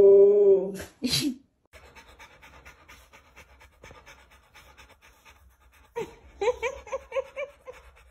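A husky's howl, held on one steady pitch, ends under a second in. Then a Rottweiler pants, a quiet run of quick rasping breaths, with a short string of quick pitched sounds about six seconds in.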